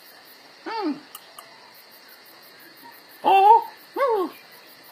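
A man's voice making short wordless vocal sounds, each rising and falling in pitch: one about a second in, and two close together near the end.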